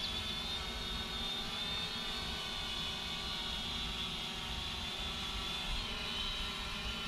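SYMA X500 quadcopter drone's propellers and motors whining steadily in flight, the pitch wavering slightly.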